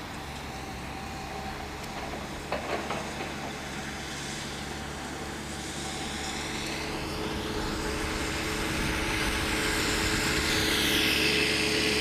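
Twin small electric motors and propellers of a micro RC airplane running in flight. The sound grows louder over the second half as the plane comes closer, with a sweeping, swirling change in tone as it passes.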